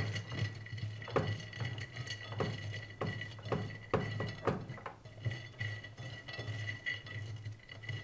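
Partly dried bread cubes being turned over by hand on a glass plate: irregular light clicks and rattles as the crisp cubes knock against the glass and each other.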